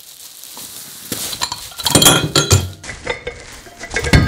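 Foam packing blocks in a plastic bag being pulled and lifted: irregular crinkling, rubbing and small knocks, starting about a second in and busiest about two seconds in and again near the end.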